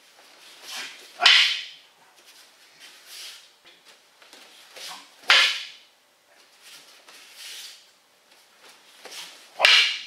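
Wooden aikido sword (boken) and wooden staff (jo) clacking together hard, three sharp strikes about four seconds apart, each with a softer knock just before it.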